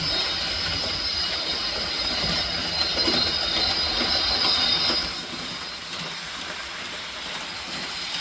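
HO scale Rapido Turbo 2 model train running at full throttle over track switches: a steady high whine over a rattling rumble of wheels on the rails. It is a little quieter after about five seconds.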